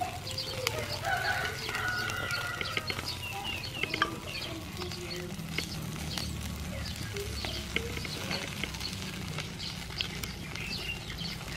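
Chickens clucking and small birds chirping in short repeated calls, over a light crackle from small octopus grilling on a wire rack over charcoal.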